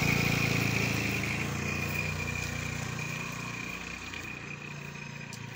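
A Honda motor scooter's engine running as it pulls away and fades steadily into the distance, with a steady high whine under the hum.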